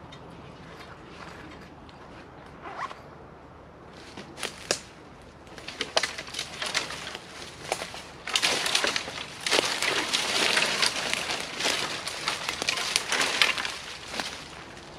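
Close rustling and crunching handling noise: a couple of sharp clicks about four and a half seconds in, then dense, irregular scraping and crackling through most of the second half.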